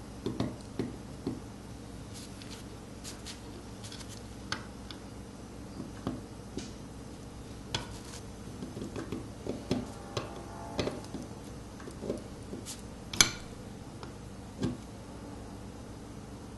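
Steel seal-carving knife cutting and scraping strokes into a stone seal clamped in a wooden vise: irregular small sharp clicks and scrapes, with one louder click about three-quarters of the way in.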